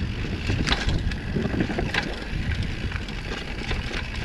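Wind rumbling on the microphone while riding a mountain bike down a trail, with the bike rattling over rough ground and a couple of sharp clicks, one under a second in and one about two seconds in.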